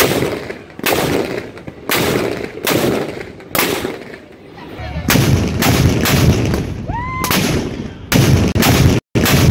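A battery of Civil War field cannons fires in quick succession, about ten shots, each a sharp boom followed by a rolling echo.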